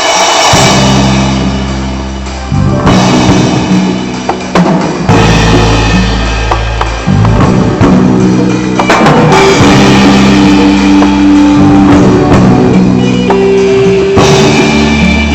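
Live band playing loudly through a PA on a sound check: drum kit hits over held low notes that change every couple of seconds, starting abruptly.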